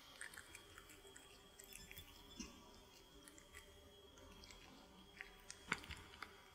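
Cat chewing and biting at a sausage baked in dough: soft, irregular chewing clicks, with a sharper click a little before the end.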